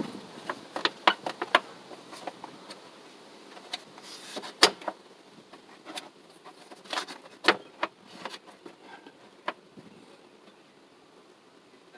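Scattered sharp clicks and knocks, about a dozen over several seconds, the loudest a little after four and a half seconds in and again at about seven and a half seconds, over low background hiss.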